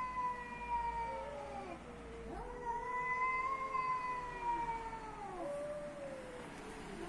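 Two cats yowling in a close standoff: long, drawn-out caterwauls, the territorial threat calls of street cats facing off. The first howl ends about two seconds in, a second runs about three seconds and falls away at the end, and a short one follows near the end.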